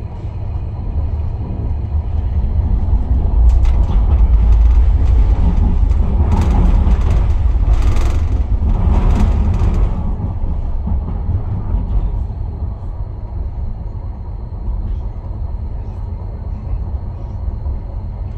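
Tram running along its line with a steady low rumble. The rumble grows louder a few seconds in and carries a spell of hissing in the middle before settling back to an even run.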